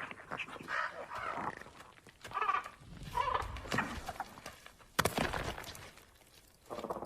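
Made-up Austroraptor dinosaur calls: a run of bird-like clucks and squawks, then a sudden louder call about five seconds in that fades, and another call starting near the end.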